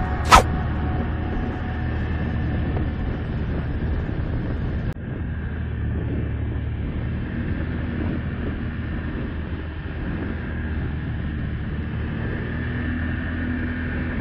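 ATV engine running steadily under way, a low continuous drone. A sharp click comes just after the start, and the sound briefly dips about five seconds in.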